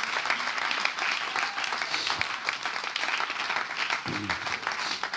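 Congregation applauding: many people clapping at once, steady throughout, with a brief voice about four seconds in.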